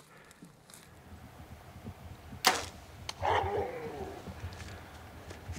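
A single sharp hunting shot about two and a half seconds in, followed a moment later by a short call that falls in pitch.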